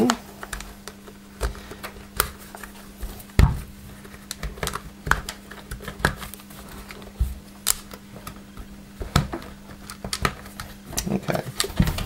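Hard plastic parts of a Dyson DC08 vacuum cleaner's motor housing and its power cord being handled and tucked in, giving scattered clicks and knocks, the loudest about three and a half seconds in.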